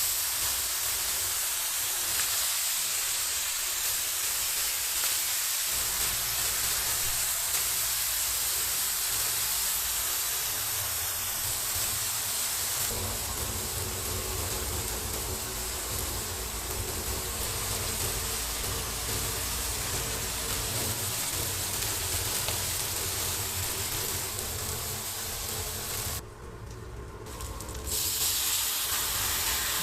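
Food sizzling as it fries on a hot griddle: a steady hiss that briefly drops away about 26 seconds in, then comes back.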